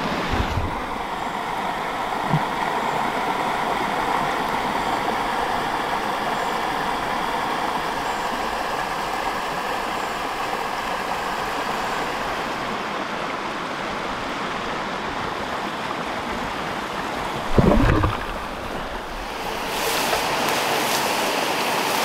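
Stream water running over rocks with a steady rush. A brief low thump comes about three-quarters of the way through, and near the end the rushing grows louder and brighter, as of a larger river's riffles.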